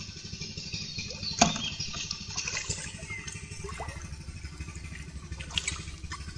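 A small motor running steadily in the background, a low even rumble. A sharp knock stands out about a second and a half in, and a softer one comes near the end.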